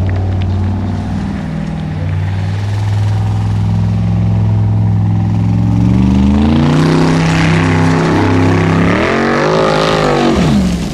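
Formula Offroad buggy's engine running at high revs on a steep dirt hill climb, holding a steady pitch, then climbing in pitch about six seconds in and swinging rapidly up and down near the end.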